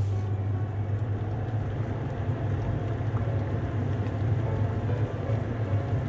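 Water boiling in a pot with lotus root slices in it: steady bubbling over a low steady hum.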